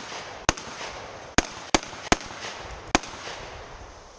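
Five shots from an MKA 1919 semi-automatic 12-gauge shotgun: one about half a second in, three in quick succession around one and a half to two seconds, and a last one near three seconds. Each report trails off in a brief echo.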